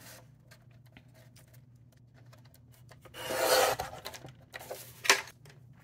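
Sliding paper trimmer's blade carriage drawn along its rail, slicing through a sheet of pink card with a short rasping swish about three seconds in. A sharp click follows near the end.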